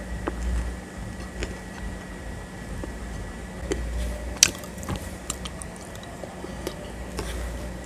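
Close-up mouth sounds of eating a thick grey paste by hand: wet chewing and squishing with scattered sharp clicks. The loudest click comes about four and a half seconds in.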